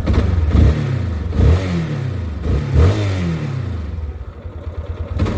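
Yamaha Fazer 250's single-cylinder engine revved in three quick throttle blips, each rising and falling in pitch, then dropping back to a low, steady idle near the end.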